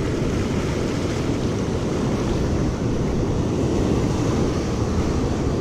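Ocean surf breaking and washing up a sandy beach, a steady rushing wash, with wind buffeting the microphone.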